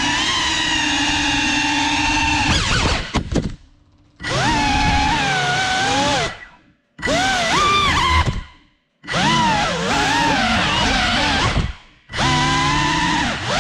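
FPV drone's electric motors whining, the pitch rising and falling with the throttle; the motors cut out about four times, around 3.5, 6.5, 8.5 and 12 seconds in, and spin back up each time.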